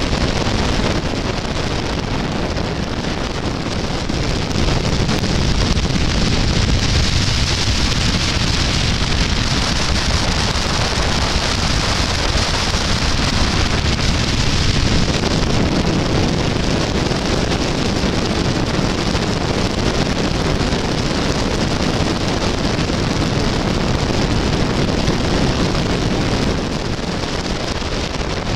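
Meteor-type hydrofoil running on the river: a steady rushing of engine and water noise, with wind buffeting the microphone. It eases a little near the end.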